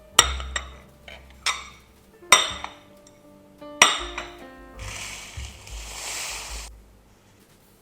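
Dishes and kitchenware clinking: four sharp, ringing knocks in the first four seconds, then an even hiss for about two seconds, over soft background music.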